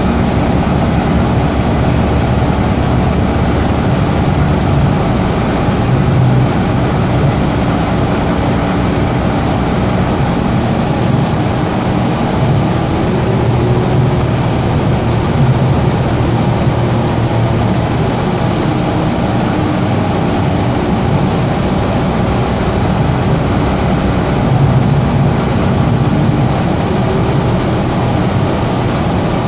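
Cabin noise of a Gillig Advantage hybrid transit bus under way: a steady low drone from the drivetrain and the running air conditioning. A faint whine rises in pitch around the middle and again near the end.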